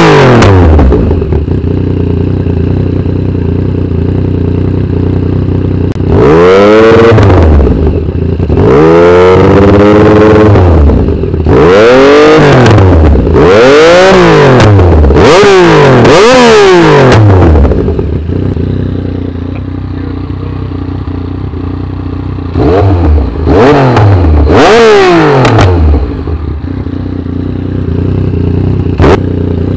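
Yamaha MT-09's inline-three engine through an SC Project slip-on exhaust, revved on a parked bike: a steady idle broken by a run of five throttle blips, each rising and falling back, then a return to idle and three shorter blips in quick succession before it settles to idle again.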